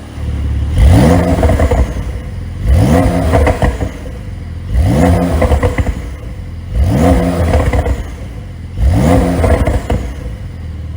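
Porsche 911 992 Targa 4S twin-turbo flat-six revved in five quick blips about two seconds apart, each rising in pitch and then falling away with a string of pops and crackles from the exhaust, the overrun pops of an ECU pop-and-bang tune.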